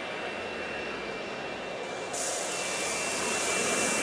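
Hand-held smoke bomb firework hissing as it burns, then about two seconds in jumping suddenly to a much louder rushing hiss as it starts venting thick white smoke far faster than it is meant to.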